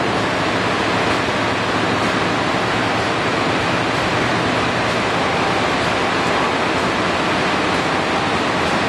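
Ski-service machine running with a steady, even rushing noise.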